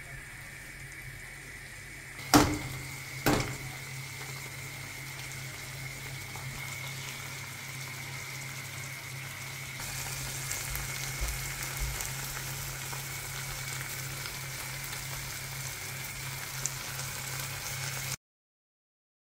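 Chicken, tomato and egg frying in a non-stick pan with a steady sizzle. Two sharp knocks a second apart near the start, as eggs are cracked against the pan, and the sizzle grows louder about halfway through as the eggs cook. The sound cuts off suddenly just before the end.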